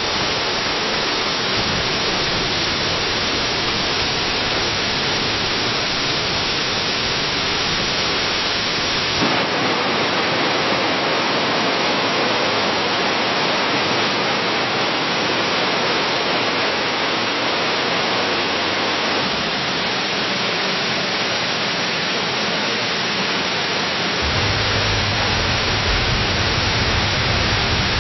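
Waterfall cascading down a cliff: a steady, dense rush of falling water. About nine seconds in the sound changes to a brighter rush with less low rumble, and a deeper rumble comes back near the end.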